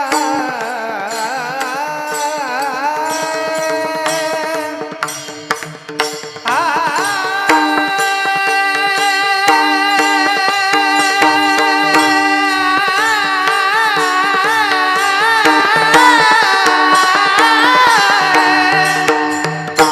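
A male kirtan singer sings a Marathi devotional melody in long ornamented, wavering notes over a steady drone accompaniment, with light percussion. A new long held phrase begins about a third of the way in.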